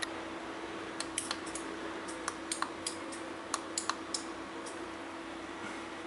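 About a dozen sharp plastic button clicks in small irregular clusters, stopping about four seconds in, over a faint steady electrical hum.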